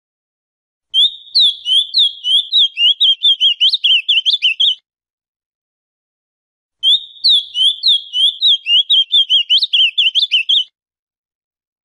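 Male ultramarine grosbeak (azulão) singing two phrases, each a quick run of warbled high notes lasting about four seconds, with a pause of about two seconds between them.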